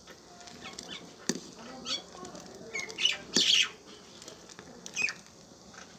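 Steel ladle stirring melting cream in an iron kadhai, with a few sharp clinks and scrapes against the pan, the loudest about three and a half seconds in. The cream is being rendered into ghee and is stirred so it does not foam up. Short high chirps sound in the background.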